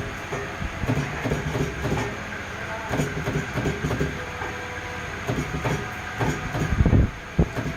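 Battery spot welder firing repeatedly on cell tabs: a fast, uneven run of sharp clicks and snaps over a steady low hum, with a louder cluster near the end.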